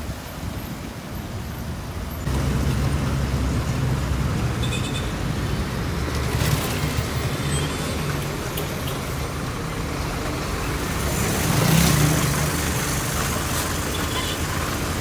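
Road traffic: heavy truck and car engines running with a steady low hum that suddenly grows louder about two seconds in. A broad rushing hiss swells and fades about three-quarters of the way through.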